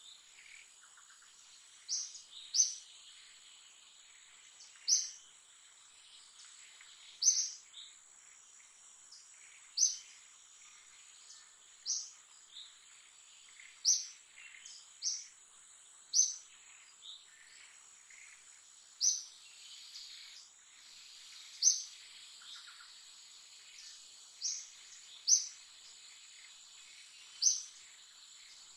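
A bird repeating a short, sharp, high call about every two seconds, over a steady high-pitched insect drone.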